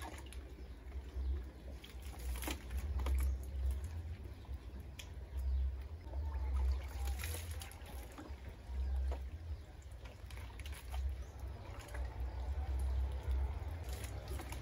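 Bath water poured from a plastic dipper over a person, splashing and trickling down onto the ground and back into the bucket, in scattered splashes. An uneven low rumble runs underneath.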